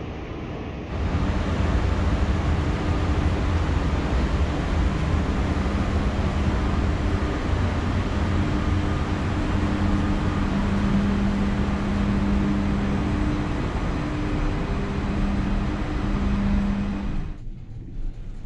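Steady, loud rushing noise of wind and rooftop ventilation machinery on a high-rise's open-air walkway, with a low hum that comes and goes. It cuts off abruptly about a second before the end.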